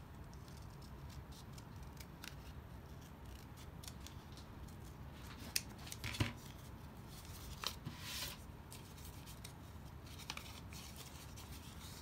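Small scissors trimming a folded piece of craft foam in faint snips and clicks, with a few louder knocks and rustles of handling about halfway through as the scissors are laid down on cardboard.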